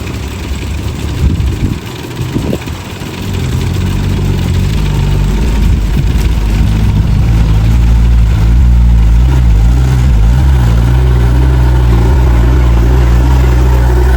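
Heavy diesel engine of earthmoving machinery running under load. It is quieter for the first few seconds, then builds up about three seconds in and holds loud and steady.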